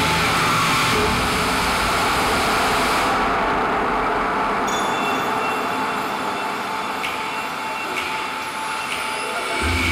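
Fountain water jets spraying and splashing down into the pool, a steady hissing rush of water. A low rumble joins just before the end.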